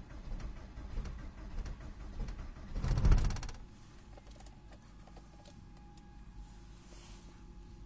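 The starter of a Seat Toledo 1.9 TDI diesel turns over briefly on a −16 °C cold start and the engine does not catch. It is a short, loud, even rattle about three seconds in, followed by a faint steady whine.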